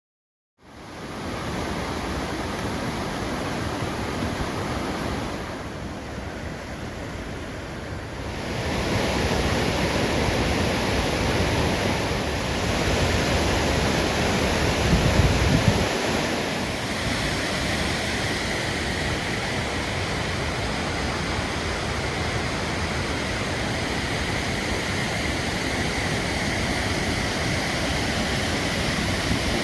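Waterfall: a steady rush of falling water, changing in tone and loudness a few times as the view changes, with a brief low buffet of wind on the microphone about halfway through.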